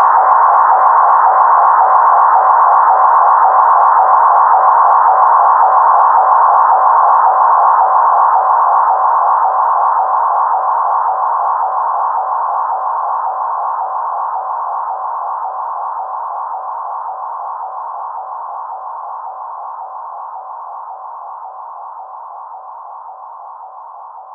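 Electronic instrumental outro of a hip-hop beat: a steady synthesizer tone with faint ticking over its first few seconds, fading out slowly from about a third of the way in.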